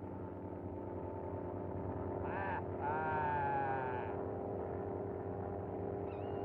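Cartoon biplane engine drone, a steady low hum with many even overtones. Over it a wavering, bleating cry sounds twice between about two and four seconds in, and a thin high steady tone starts near the end.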